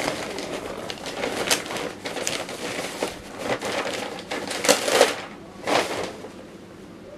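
Plastic mailer bag crinkling and rustling as clothing is pulled out of it, in irregular crackly bursts, loudest about five seconds in, then quieter near the end.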